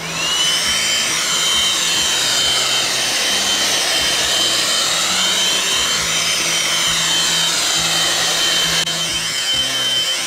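Makita 18V cordless blower spinning up about half a second in, then running at full speed: a steady high whine over the rush of air as it clears twigs and leaves from the path.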